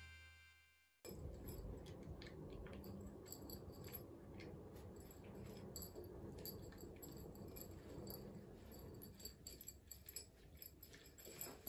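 A cat eating from a small dish: faint, irregular small clicks of chewing and licking, starting about a second in after a short silence.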